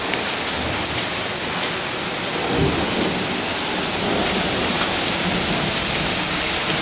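Heavy hailstorm: large hail and rain pelting down steadily, a dense hiss of downpour with scattered sharp ticks of hailstones striking.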